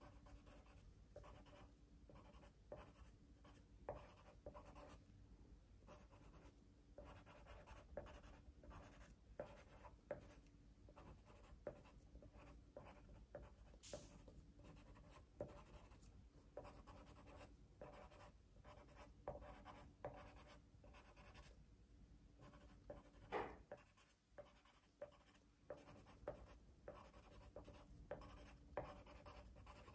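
Faint, quick scratching of pencil strokes on paper as clusters of leaves are drawn in, short irregular strokes one or two a second, one louder stroke about three-quarters of the way through.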